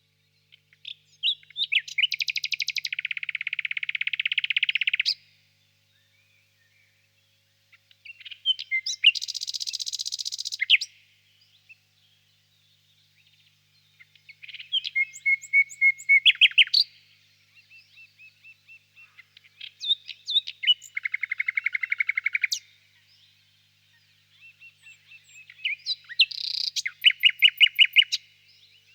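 Nightingale singing: five separate song phrases of two to four seconds each, with pauses between them, made of fast runs of repeated notes and trills mixed with a few clear whistled notes.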